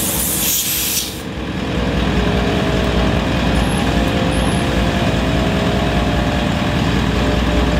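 Twin-cylinder 12-volt air compressor pumping air into a 4WD tyre through a hose. A sharp air hiss about a second in stops as the hose's chuck seals on the valve, and the compressor then runs under load with a steady, fast-pulsing drone.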